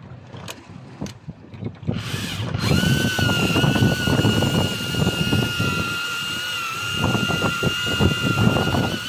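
Wind buffeting the microphone, then about two seconds in a fishing reel on a rod bent by a hooked fish starts a steady high whine that holds on.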